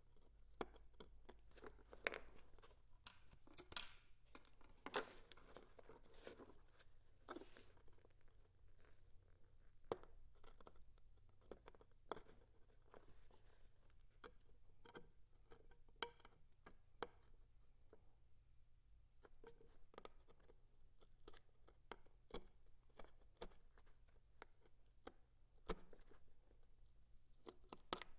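Razor blade scraping and cutting the old thread wrap off a bamboo fly rod guide: irregular small scrapes, crackles and sharp clicks, close up.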